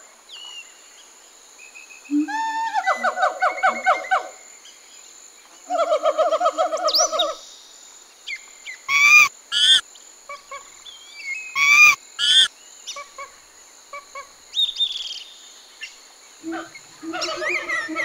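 Monkeys calling: bursts of rapid, pulsing chatter, then two pairs of short, sharp shrieks, with more chatter near the end. A steady high whine of insects runs behind.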